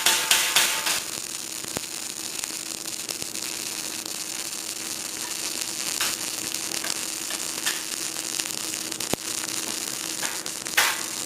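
CO2 semi-automatic (gas-shielded MIG) welding arc making a steady crackling hiss with a faint hum. It starts about a second in, after a rhythmic beat, and stops near the end as the beat returns.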